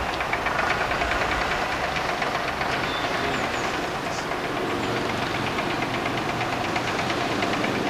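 Diesel engine of a double-decker bus running steadily at low speed, with a fast, even clatter throughout.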